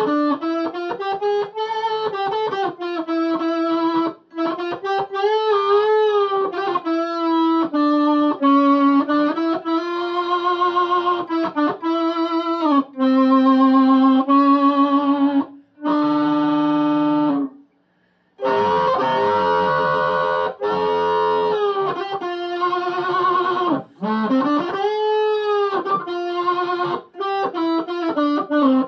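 Epiphone Les Paul electric guitar played through a TC Electronic Rusty Fuzz and a Crescendo swell pedal into a Marshall mini stack: sustained fuzzed notes with pitch bends and vibrato. The playing cuts out briefly about 18 seconds in, then resumes.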